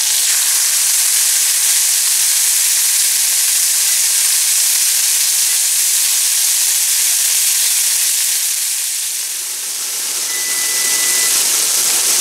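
Steak frying in hot oil in a cast iron skillet: a loud, steady sizzle that eases briefly about nine seconds in, then builds again. A thin, steady high tone sounds near the end.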